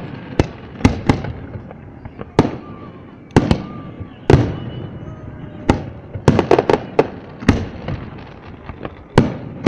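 Aerial fireworks going off: an irregular string of more than a dozen sharp bangs, some coming in quick clusters, each trailing off in an echo.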